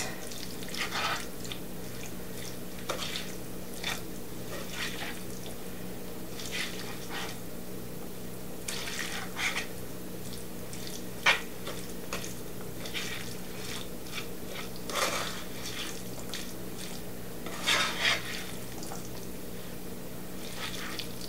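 Spoon scooping and scraping a wet bean, rice and corn burrito filling out of a bowl and spreading it on tortillas: scattered soft clicks, scrapes and wet plops every second or so, over a steady low hum.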